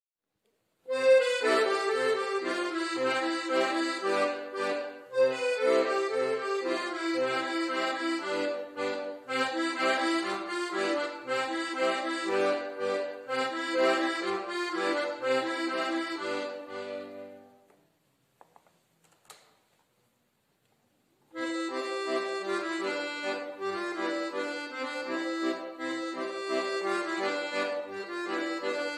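A piano accordion played solo, with a melody and chords over regular bass notes. Past the middle the piece fades out, and after a pause of a few seconds the next piece begins.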